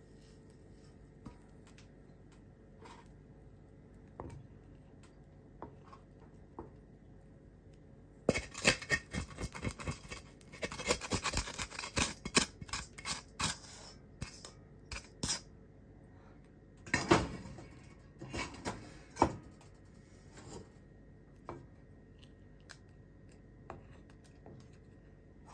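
Wooden spatula scraping and knocking against a wok as fried rice is scraped out of the pan: a few light taps at first, then a dense run of scraping from about a third of the way in, and another loud burst of scrapes a little later.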